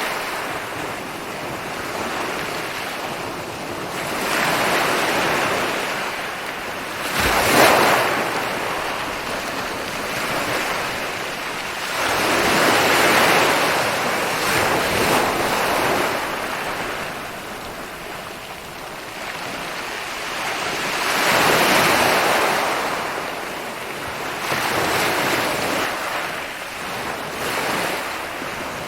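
Ocean waves breaking on a beach, a steady rush of surf that swells and ebbs every few seconds. One sharper wave crashes about seven seconds in.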